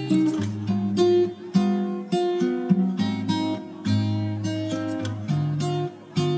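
Background music: an acoustic guitar picking a melody, with a new plucked note or chord about every half second, each left to ring.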